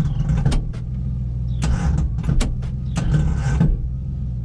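Starter motor of a 1968 Dodge Dart cranking the engine over without it catching, in uneven surges, on a battery that has been run down and is being charged from another vehicle. The starter sounds rough, as if it's about to fall off.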